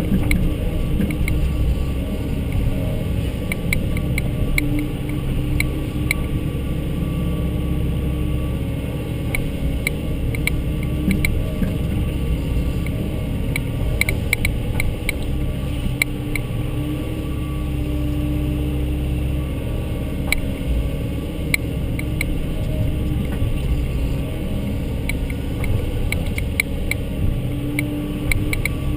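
Volvo excavator's diesel engine running steadily under working load, its pitch rising and falling a little, with many short sharp clicks and knocks scattered through it.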